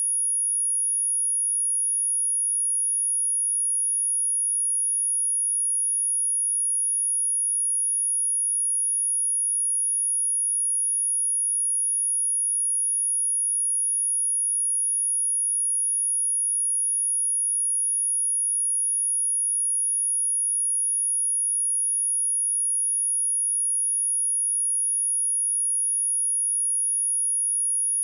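A steady, high-pitched pure sine-wave test tone at 10401 Hz, held at one pitch and level throughout.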